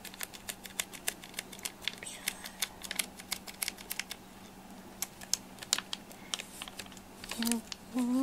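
Silicone spatula mashing and scraping wet cat food on a small ceramic dish: a rapid run of sharp clicks and scrapes, several a second, pausing for about a second midway.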